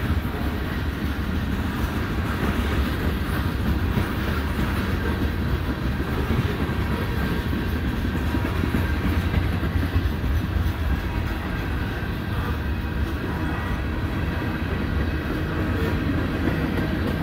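Freight cars of a CN train rolling past close by, with a CPKC auto-rack train passing on the far track: the steady noise of steel wheels running on rail.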